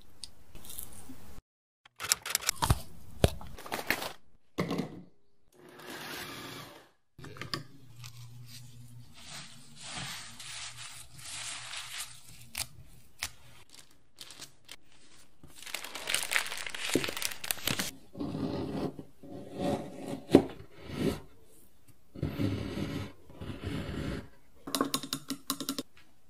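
Kitchen food-preparation sounds: a run of clicks, taps, scrapes and rustles from utensils, bowls and food, broken by short silent gaps, with a low steady hum from about eight to thirteen seconds in.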